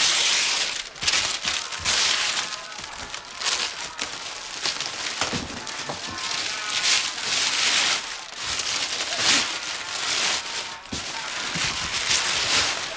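Paper being crumpled and torn in repeated handfuls, a dense crackling rustle that swells and eases every second or two.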